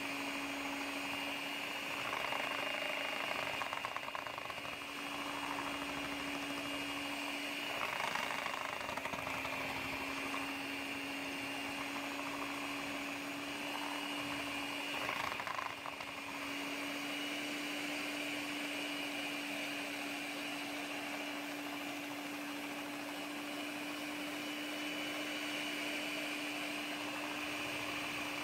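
Electric mixer running steadily, whipping body butter that is thickening as it cools. The motor's whine holds one pitch and shifts slightly a few times as the beater works through the mixture.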